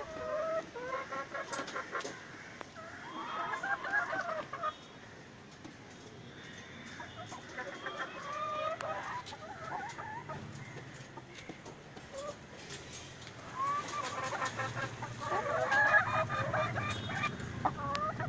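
A flock of BV 380 laying hens clucking and cackling in bursts, with quieter gaps between.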